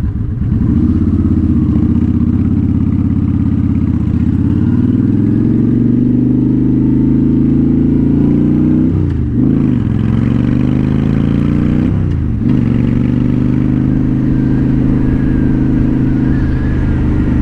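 2007 Honda Shadow Spirit 750's V-twin running through a Cobra Streetrod Slashdown aftermarket exhaust, heard while riding. It accelerates with the pitch climbing, dips twice as it is shifted up about nine and twelve seconds in, then holds a steady cruise. The owner says the carburettor still needs retuning for the new exhaust.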